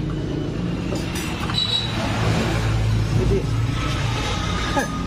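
A motor vehicle engine running steadily, with a low hum that holds the same pitch throughout.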